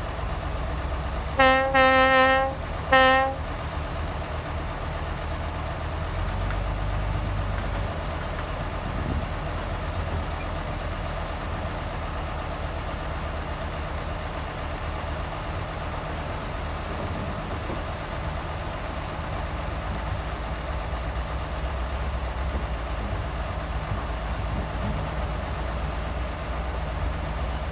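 A heavy vehicle's horn sounds three short toots in the first few seconds, over the steady low running of a heavy diesel engine, which carries on alone for the rest of the stretch.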